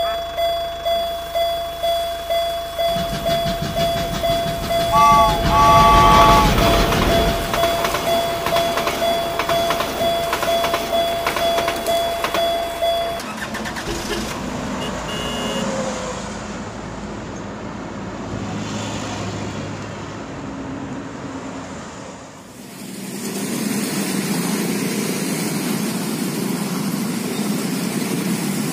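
A toy level-crossing alarm dinging fast, about three strikes a second over a steady tone, with a louder rumble and two short toots about five seconds in. The alarm stops about halfway through. Near the end, motorcycle and car engines run at a real railway crossing.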